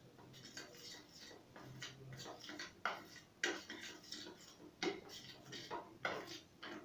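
A spoon stirring a thick poppy-seed and mustard spice paste in a small steel bowl, clicking and scraping against the metal in irregular strokes about once a second.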